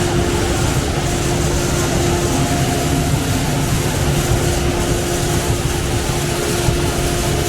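Cotton gin machinery running: a loud, steady mechanical din with a couple of steady hums over it.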